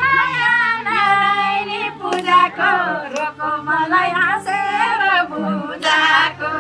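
A high voice singing in short phrases with wide, wavering vibrato, over background music.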